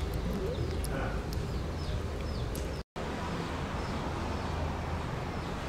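Steady outdoor background rumble of distant traffic, with a few faint high chirps. The sound cuts out for an instant just under halfway through.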